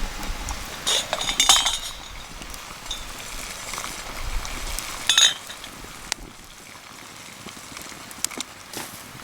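Metal cookware or utensils clinking and ringing: a cluster of clinks about a second in, another about five seconds in, and a few light clicks near the end, over a steady outdoor hiss.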